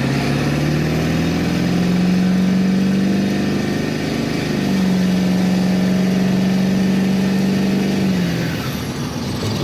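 Ford 7.3 Power Stroke V8 turbo-diesel running under load on a performance tune. Its pitch climbs over the first couple of seconds and holds, dips briefly about halfway through, holds again, and falls away near the end.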